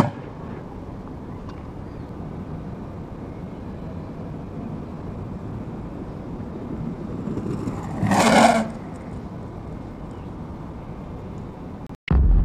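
Steady outdoor background rumble on an action camera's microphone, with a loud rushing noise lasting under a second about eight seconds in. Near the end the sound cuts out and the deep boom of the GoPro end-logo sting begins.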